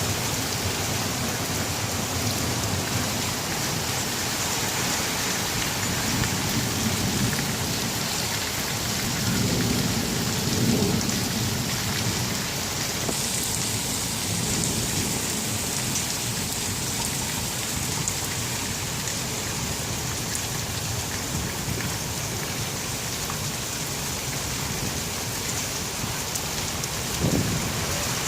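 Steady heavy rain pouring down, with low thunder rumbling that swells about ten seconds in. A brief thump comes near the end.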